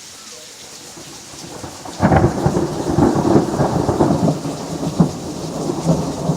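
Steady rain falling, then about two seconds in a sudden loud crack of thunder that breaks into a long, crackling rumble, with a sharper clap near five seconds.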